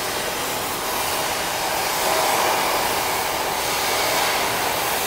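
Cutting torch running with a steady hiss as it cuts through the steel front crossmember of a truck frame.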